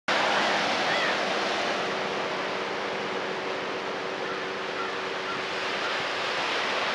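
Ocean surf breaking and washing over a rocky cobble beach: a steady rush of water, loudest at the start, easing a little midway and swelling again near the end.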